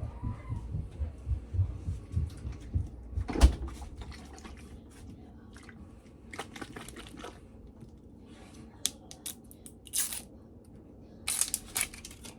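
Handling noises at close range: a run of low bumps and knocks with one sharp loud knock about three and a half seconds in, then scattered clicks and a few short rustling, crinkling bursts near the end.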